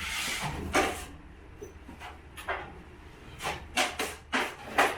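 Drywall taping knife working against a mud pan: a scrape, then sharp metallic clicks and knocks at uneven spacing, coming quicker near the end.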